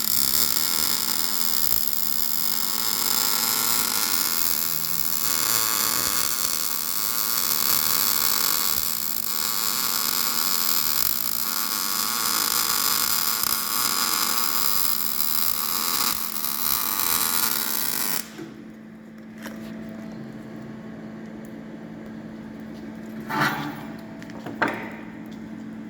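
Electric arc welding crackling and hissing steadily for about eighteen seconds over a steady hum, then cutting off abruptly. Two brief crackling bursts follow near the end.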